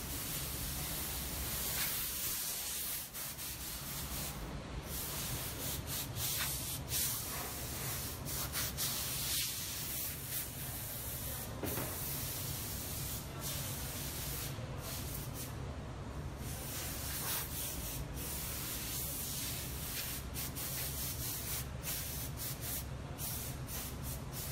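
Paint spray gun hissing almost continuously, with a few brief breaks in the hiss, over a steady low hum.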